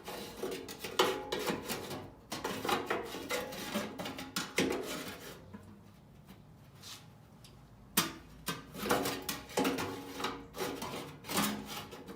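Sheet-metal blower parts of a heat pump air handler being handled and slid back into place: irregular metal scraping and rubbing with sharp knocks, quieter for a couple of seconds in the middle before more scraping and clunks.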